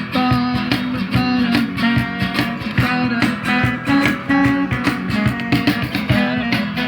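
Instrumental rock passage: guitars playing a melody over a steady drum beat, with no singing.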